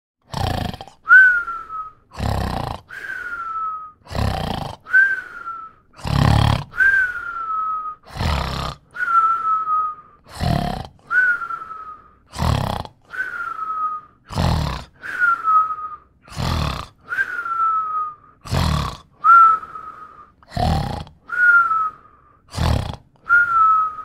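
A person snoring in a steady rhythm: each cycle is a rough, rasping snore followed by a short whistle that falls slightly in pitch, repeating about every two seconds.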